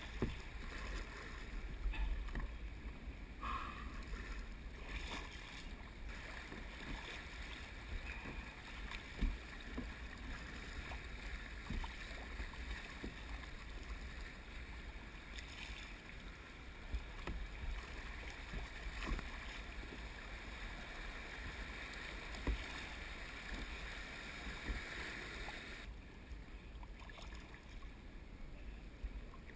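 Shallow river water rushing and splashing against a plastic sit-on-top kayak running riffles, with occasional knocks of paddle strokes and a steady low rumble. The rushing thins out about four seconds before the end as the kayak glides onto calm, deeper water.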